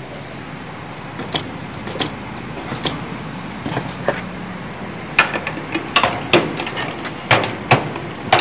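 Irregular sharp clicks and knocks, more frequent in the second half, from footsteps and handling of the phone as it is carried around the truck, over a steady hum of street traffic.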